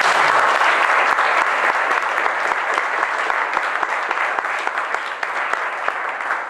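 Audience applauding: many people clapping in a dense, steady patter that eases off slightly near the end.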